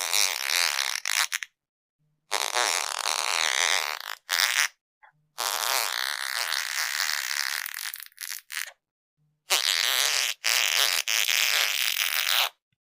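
A run of fart sounds, each one to three seconds long, separated by short silent gaps: one ends about a second and a half in, and three more start about two, five and nine seconds in.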